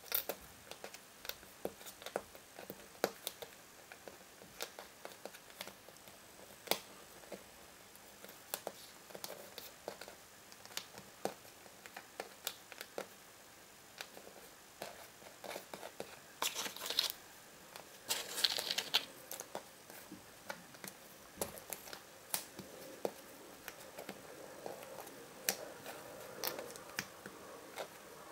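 Cardboard jigsaw puzzle pieces being picked up, slid and set down on a wooden surface by hand: a scattered run of light clicks and taps, with two brief rustling stretches a little past the middle.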